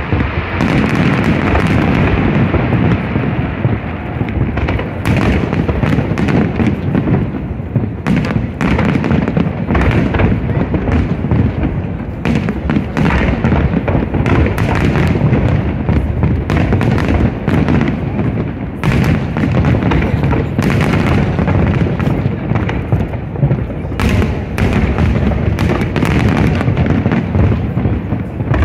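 Aerial fireworks shells bursting in rapid succession, many sharp cracks and bangs over a continuous rumble of booms.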